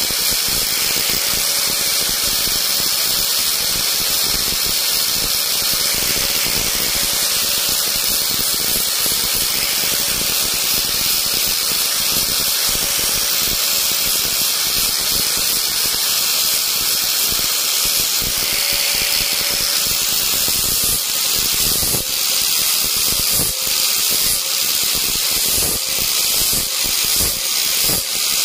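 Small high-speed electric rotary tool running steadily and cutting into wood with a hissing whine. From about twenty seconds in, the sound dips and comes back again and again as the tool bites into the wood.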